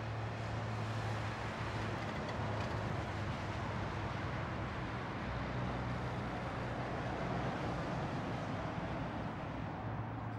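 Road traffic: a steady wash of vehicle noise with a low engine hum underneath.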